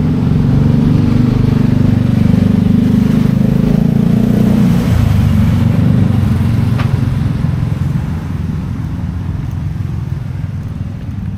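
A motor vehicle's engine running close by in street traffic, loudest over the first five seconds or so and then fading away.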